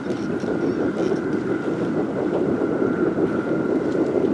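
Distant passenger train running past at speed: a steady rumble of wheels on rail with a faint, steady high whine.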